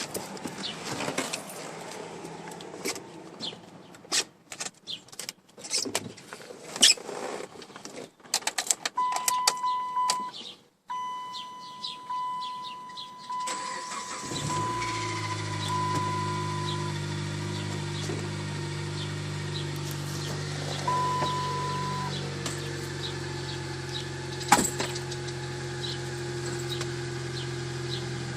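Clicks and knocks, then a high beeping chime. About 14 seconds in, a Dodge Caliber SRT4's turbocharged 2.4-litre four-cylinder cranks and catches on a cold start, then idles steadily with a faint whine above the engine note.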